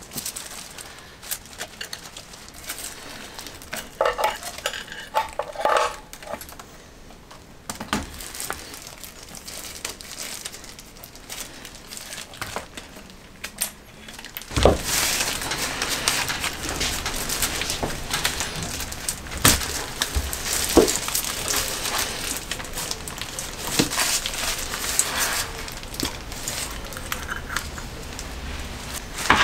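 Metal clinks, knocks and rattles as the four-carburettor bank of a Honda CB750 SOHC is worked off the engine and handled on a workbench, with a heavy knock about halfway through. From then on a steady hiss of rain sits under the handling noises.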